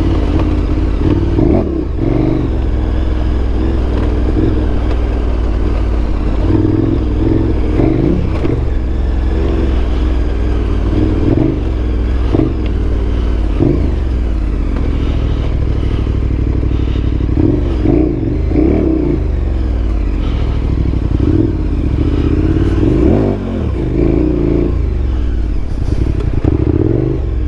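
KTM 1290 Super Adventure R's 1301 cc V-twin engine running under way, revving up and falling back again and again as the bike is ridden.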